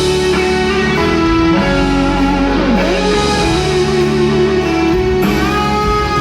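Live band music in an instrumental passage between sung lines, with a guitar, likely electric, carrying the lead over sustained backing.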